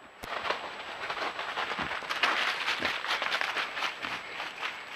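Dense crackling and rustling of dry leaf litter as a wild boar forages through it, starting abruptly about a quarter second in.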